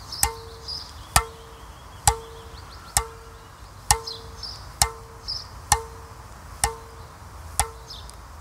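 A tennis racquet's string bed, a full bed of stiff polyester monofilament strings, tapped nine times at an even pace of about one tap a second. Each tap is a sharp knock followed by a short ringing tone: the string bed's ping, which shows its tone.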